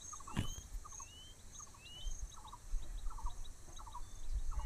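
Birds calling in the background: a short rising chirp repeated about once a second and small groups of quick stuttering lower notes, over a faint steady chirring of insects.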